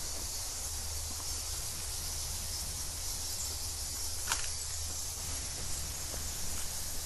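Steady high-pitched chorus of insects in tropical forest, with a low rumble underneath and a single faint click about four seconds in.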